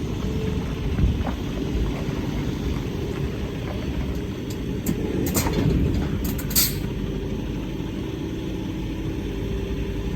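Truck engine running with a steady low rumble, with two brief hisses about five and six and a half seconds in.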